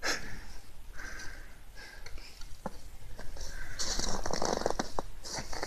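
Close rustling and crackling handling noise, with scattered clicks, growing denser from about four seconds in.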